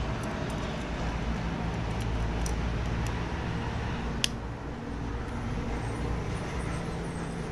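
Steady low background rumble with a single sharp click about four seconds in, as a phone's motherboard is handled and fitted into its frame.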